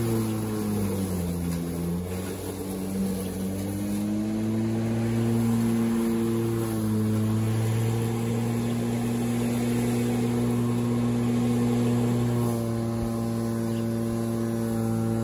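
Greenworks 20-inch 12-amp corded electric lawnmower running while cutting grass. Its motor and blade make a steady hum, and the pitch dips and recovers about a second in.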